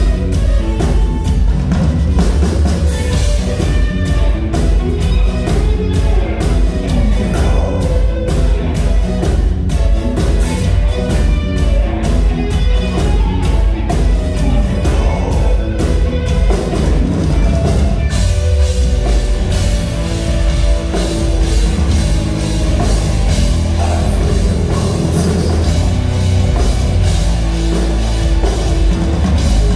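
Rock band playing live: drum kit, electric guitars and keytar. The dense drumming eases a little past halfway into longer held notes.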